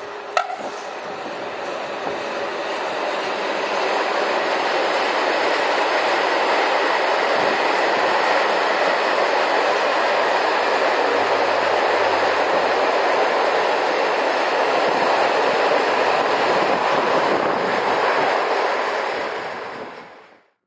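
A freight train passing close by: an OSE class 120 electric locomotive followed by a long line of loaded open high-sided freight wagons. The wheels on the rails make a steady rumble with some clickety-clack, which builds over the first few seconds, holds, and fades out just before the end. A single sharp, short sound comes about half a second in.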